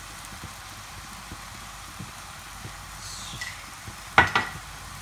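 Seasoned rice sizzling quietly in a non-stick frying pan, a steady hiss with small scattered crackles. About four seconds in comes a single sharp knock with a brief ring.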